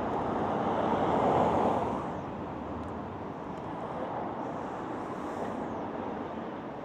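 Wind rushing over the microphone, a steady noise that is louder for the first two seconds and then eases.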